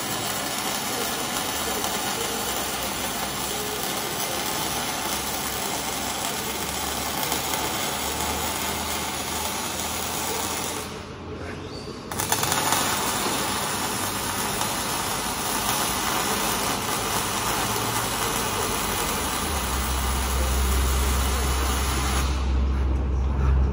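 MIG welding arc on steel, a steady crackling hiss. It stops for about a second near the middle, then strikes again. Near the end the arc stops and a low hum is left.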